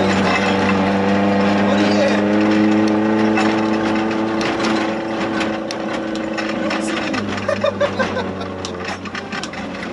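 Suzuki Jimny 1300 16-valve rally car's engine heard from inside the cabin, pulling hard at a steady pitch, then easing off about seven seconds in. Clicks and knocks from the car over the rough track sound over it.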